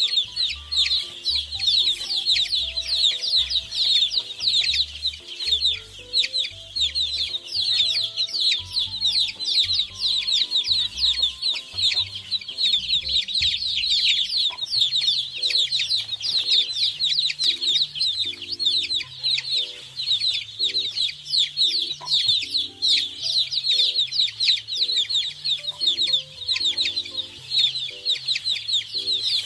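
Many chicks peeping all at once: a dense, continuous chorus of short high-pitched peeps. Low music notes play faintly underneath.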